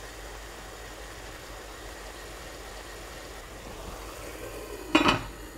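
Sliced red onions sizzling steadily in oil in a frying pan. About five seconds in, a glass lid is set down on the pan with a brief clatter.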